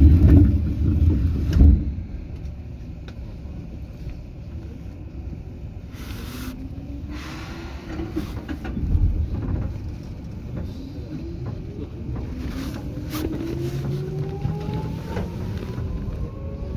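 Seibu 2000 series electric train pulling away. A heavy low rumble fills the first two seconds, then the traction motor and gear whine climbs steadily in pitch as the train gathers speed.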